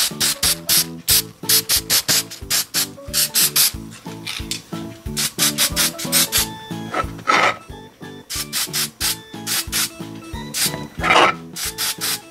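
Background music with a fast, even beat of short hissy hits over a changing low bass line.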